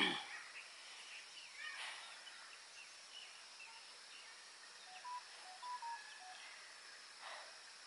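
Quiet rural outdoor ambience: a steady high insect hum with scattered short bird chirps, and a brief louder sound with a falling pitch right at the start.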